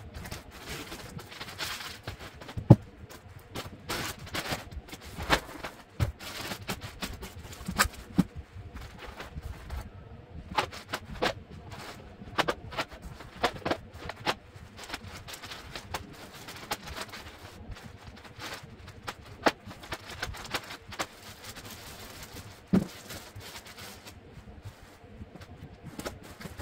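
Crumpled kraft packing paper and cardboard rustling and crinkling as a shipping box is unpacked by hand, with light knocks of small cardboard pasta boxes being set down; one sharp knock about three seconds in.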